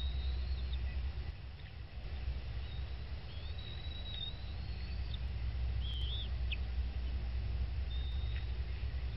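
Thin, high bird calls: a few drawn-out whistles, the longest rising slowly, and a short wavering chirp, over a steady low rumble.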